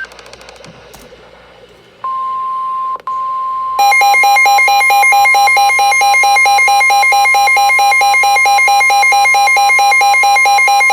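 Emergency alert tones from a weather radio broadcast. A steady warning alarm tone starts about two seconds in, and a couple of seconds later a louder, rapidly pulsing electronic alert beep joins it and runs on with it.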